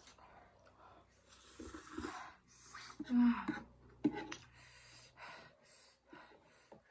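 Someone eating noodles with mouth sounds: a few hissing slurps and breaths, a short low vocal sound partway through and a sharp click about four seconds in.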